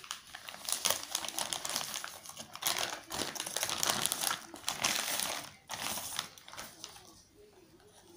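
Plastic courier mailer bag crinkling and crackling as it is handled and torn open by hand, dense for about five and a half seconds, then a few softer rustles as the box is drawn out.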